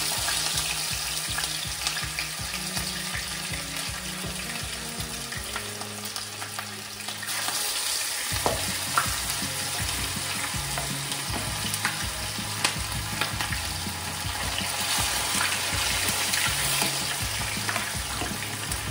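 Whole seasoned fish shallow-frying in hot oil in a frying pan: a steady sizzle, with a few sharp clicks as metal tongs touch the pan and fish.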